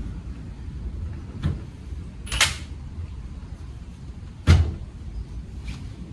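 A handful of separate sharp metal clanks and knocks, about five, from tools and parts being handled during front suspension work, the loudest just past the middle, over a low background rumble.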